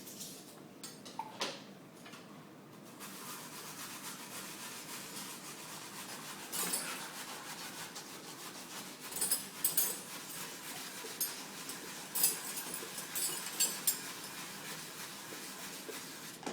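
Dogs licking dirty dishes in an open dishwasher rack: a steady rubbing and licking sound that starts about three seconds in, with short louder bursts now and then.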